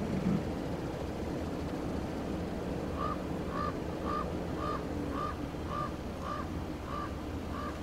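A bird giving a short, repeated call note about twice a second, nine times in a row, starting about three seconds in, over a steady low rumble.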